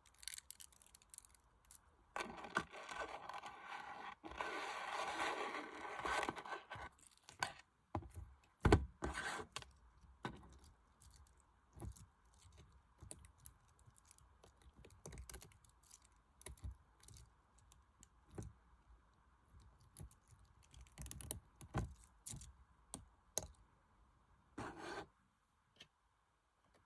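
Slime being handled and squished by hand: irregular sharp clicks and pops, with a few seconds of scratchy noise starting about two seconds in.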